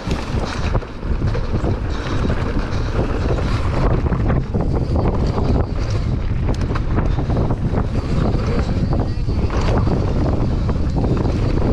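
Heavy wind noise on the camera microphone of a downhill mountain bike at speed on a dirt trail, with frequent short clattering knocks from the bike rattling over roots and rocks.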